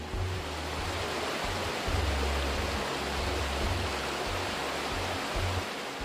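Shallow rocky stream rushing over stones: a steady rush of water that fades away near the end, with background music underneath.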